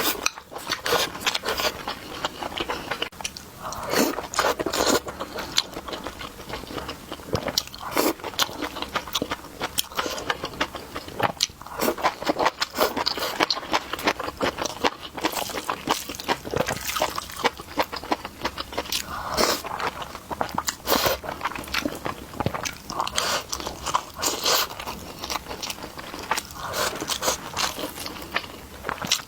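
Close-miked eating: a person chewing and biting food, with many short mouth clicks and smacks following one another throughout.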